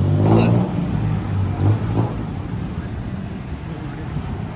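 Street traffic: a motor vehicle's engine running close by, its hum easing off about two seconds in, over a steady road noise.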